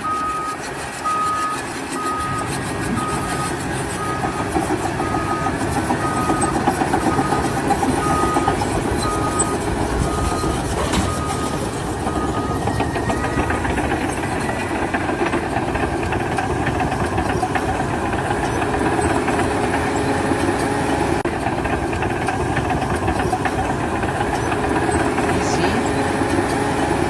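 Heavy vehicle's engine running, with a reversing alarm beeping steadily, a little faster than once a second; the beeping stops about halfway through while the engine keeps running.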